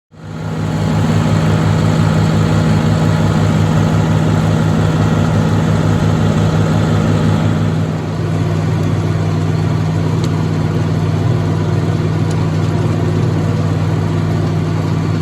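Farm tractor engine running steadily and loud, with a slight dip in level about eight seconds in.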